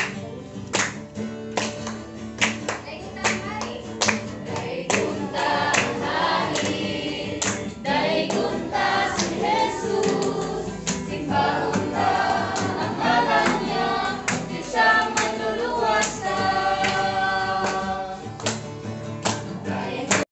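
A group singing a worship song together to guitar strumming. The guitar's steady strum is heard alone at first, and the voices come in about five seconds in.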